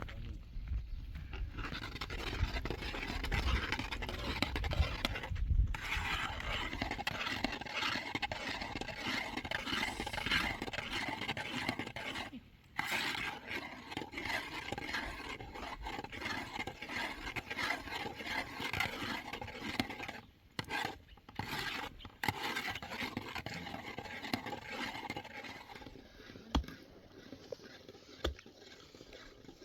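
Steady scraping and rubbing, a rough rasping sound, broken by short pauses about five, twelve and twenty seconds in, then fading away near the end.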